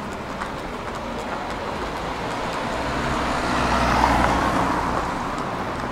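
Tram running, its rumble and rolling noise swelling to a peak about four seconds in and then easing off.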